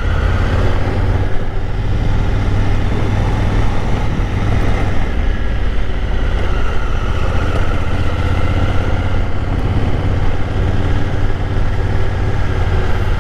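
Honda Africa Twin's parallel-twin engine running steadily at low speed in a low gear on a dirt road.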